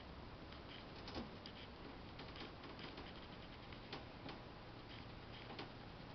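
A hand stroking and scratching a rabbit's head and ears, heard as faint rustling with scattered soft clicks, about two a second, at an uneven pace, over a low hiss.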